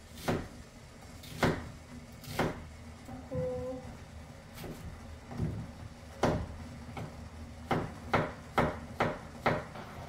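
Knife chopping on a wooden cutting board: sharp knocks about a second apart, coming quicker, about two a second, near the end.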